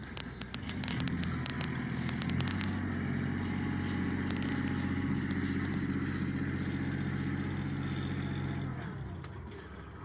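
An engine running steadily close by, an even low hum that comes up about half a second in and fades away near the end. Sharp clicks in the first few seconds.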